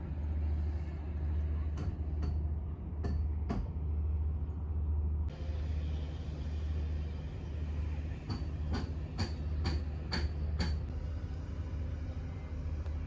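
A low, steady rumble with scattered light clicks: a few about two to three seconds in and a quick run of about seven more later on.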